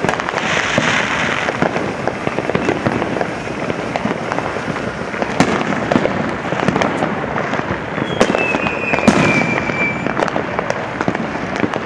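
Many fireworks and firecrackers going off on all sides, a continuous crackle of pops and bangs with a few sharper bangs among them. About eight seconds in, a high whistle slides a little lower in pitch for about two seconds.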